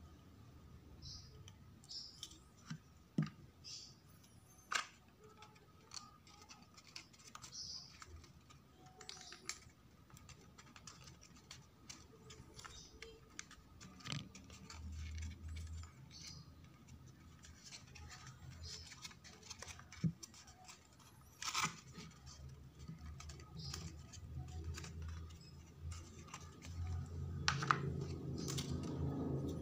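Cardstock paper rustling and scraping as printed papercraft pieces are handled and pressed together, with scattered small clicks and taps. A faint steady hum runs underneath.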